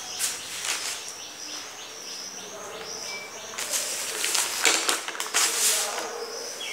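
High insect chirping repeating steadily, with a few short bursts of noise in the second half.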